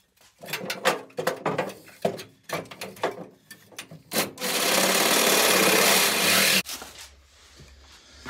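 Makita 18V LXT cordless reciprocating saw cutting into a truck cab's sheet steel. A run of uneven knocks and short spurts comes first, then about two seconds of steady cutting that stops abruptly.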